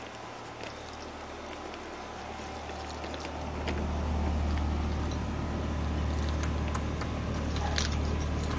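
Outdoor air-conditioner condenser unit running with a steady low hum, growing louder about three and a half seconds in as the phone comes up close to it, with light high clicks and jingles over it.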